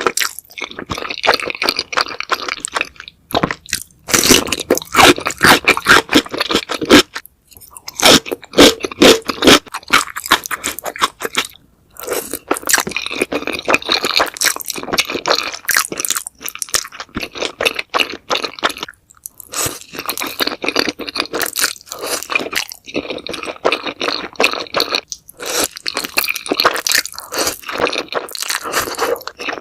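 Close-miked crunching and chewing of crispy fried chicken, a rapid crackle of bites with a few short pauses between mouthfuls.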